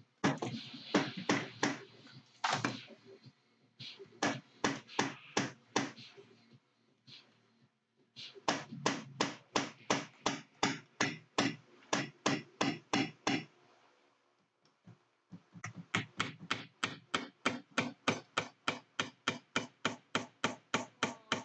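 Ball-peen hammer tapping a small punch or part laid on a wooden board, working a pin loose from a Marlin 60 .22 rifle part. The taps come about three a second in several runs with short pauses between.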